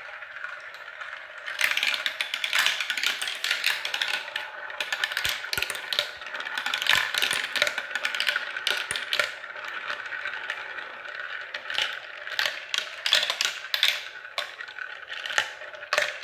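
Four light-up marbles rolling down a plastic marble run. They swirl around clear plastic funnels and drop through tubes, making a continuous rolling rattle with many sharp clicks and clacks. The sound gets louder about a second and a half in.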